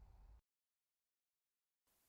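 Near silence: a faint low background hum fades out, then dead digital silence.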